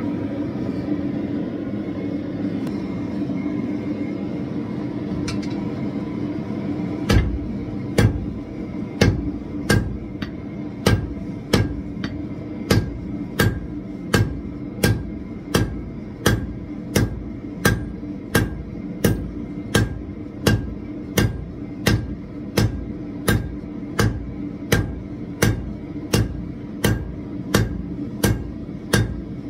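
Blacksmith's hammer drawing out a red-hot bar on an anvil, in steady, evenly spaced blows a little under two a second, starting about seven seconds in. Beneath it the gas forge's burner runs with a steady rushing noise.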